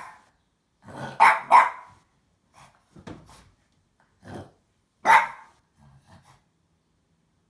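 French bulldog barking in short, separate barks: two loud barks close together about a second in, a few softer, lower barks after that, and another loud bark about five seconds in.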